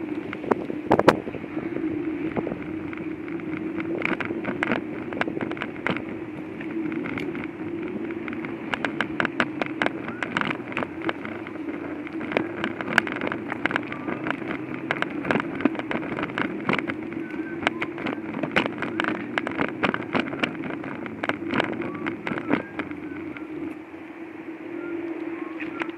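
Steady motor hum from a small wheeled vehicle moving across tiles, with frequent irregular clacks and knocks as it rolls.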